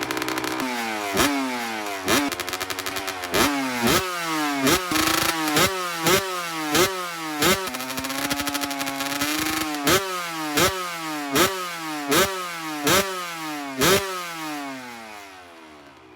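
Kawasaki KX125 two-stroke dirt bike engine being blipped over and over, each sharp rev falling straight back, with one longer held rev about halfway. Near the end the revving stops and the engine sound fades. The engine is running well on its freshly rebuilt top end.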